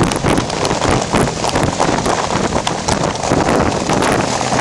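Sled being towed fast over snow and ice, scraping and clattering with irregular bumps and knocks, with wind buffeting the microphone.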